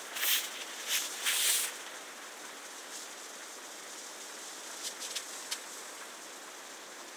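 Footsteps swishing through long grass, three steps in the first second and a half, then they stop, leaving a steady faint hiss with a few light ticks.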